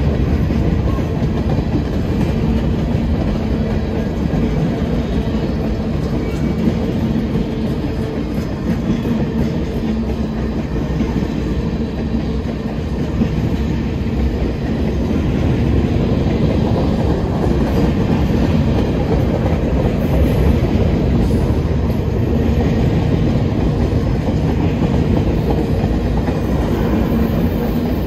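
Freight train of tank cars and hopper cars rolling steadily past, with a continuous low rumble and the fast clicking of steel wheels over the rail joints.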